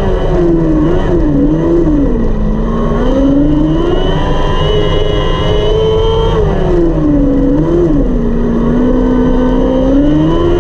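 600cc micro sprint's motorcycle engine at racing speed, heard from on board: the revs fall as it lifts for a turn and climb back under throttle, twice, over the rush of wind and chassis noise.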